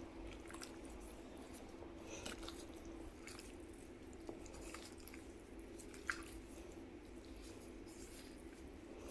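Raw bone-in chicken pieces being mixed in a wet spice marinade: faint, irregular squelching with soft clicks.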